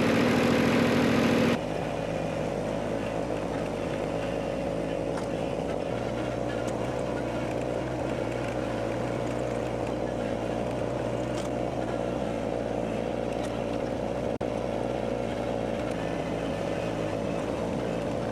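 An engine running steady. A louder, deeper drone stops abruptly about a second and a half in, leaving a quieter steady engine hum.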